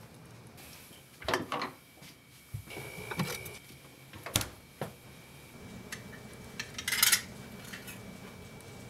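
Scattered knocks and clinks of small objects being handled, with a mini-fridge door opened about four seconds in and a sharp click from it. The loudest sound is a short hissing rustle near the end.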